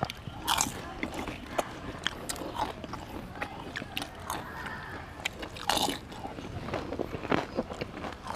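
Crisp fuchka (pani puri) shells cracking and crunching as they are bitten and chewed rapidly, an irregular run of sharp crunches with a few louder cracks about half a second in, near the six-second mark and past seven seconds.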